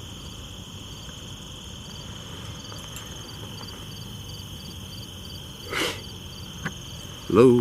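Crickets and other night insects chirring steadily, with a pulsed chirp repeating a few times a second over a continuous high trill. A brief rustle or crunch sounds once, about six seconds in.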